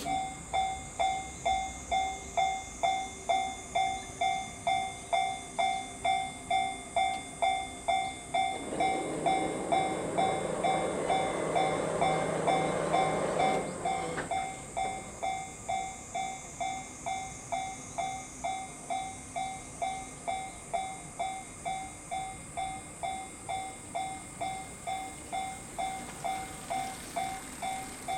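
Japanese level-crossing alarm bell ringing, a clear ding about twice a second that starts suddenly. About eight seconds in, a train passes over the crossing for roughly five seconds, its rumble rising over the bell, which keeps ringing after the train has gone.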